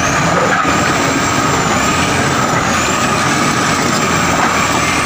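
Crawler bulldozer's diesel engine running steadily as the machine works through a rocky stream, with a steady high whine over the engine noise.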